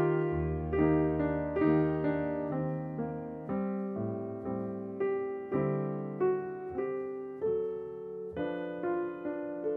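Solo piano music: a slow, gentle melody of single struck notes, each ringing out and fading, over sustained low bass notes.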